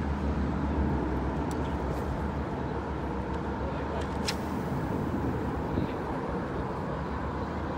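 Steady low outdoor rumble with a few faint ticks.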